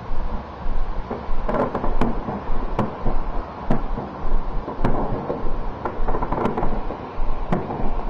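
Fireworks bursting overhead during a display: a string of sharp bangs, roughly one a second, each trailed by a short rumbling echo, with denser crackling around the second and sixth seconds.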